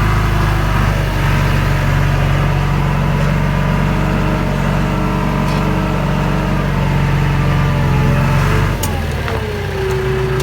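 Tractor engine running steadily under way; a little before the end its note drops and a falling whine is heard.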